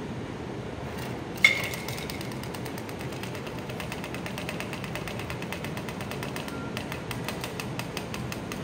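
Cocktail being double-strained from a metal shaker through a fine mesh strainer: one sharp metallic clink about one and a half seconds in, with a short ring, then a fast, even run of small ticks and rattles.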